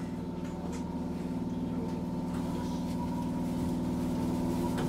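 Shin-Keisei electric commuter train running, heard from inside at the front of the train: a steady hum made of several fixed tones, growing a little louder as it goes.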